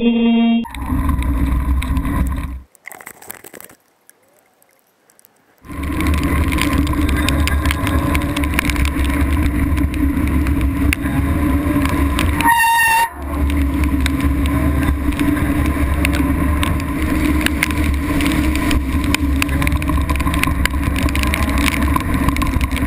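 Vespa scooter running steadily, with a constant engine hum and rushing noise, and the sound dropping out for about three seconds near the start. About halfway through a horn gives one short, high toot.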